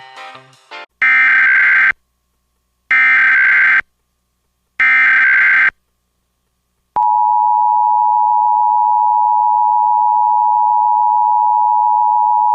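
Emergency Alert System tones announcing a tornado warning: three loud one-second bursts of SAME header data with short silent gaps between them, then about seven seconds in the steady two-tone EAS attention signal starts and holds.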